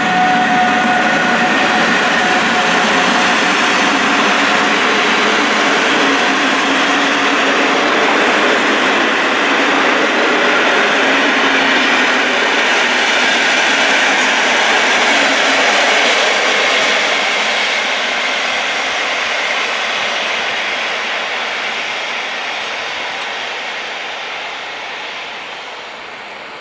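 PKP Intercity passenger train rolling past close by: a steady loud rush of wheels on rail from the passing coaches, with a few steady high whine tones in the first seconds. The noise dies away over the last ten seconds or so as the train draws off.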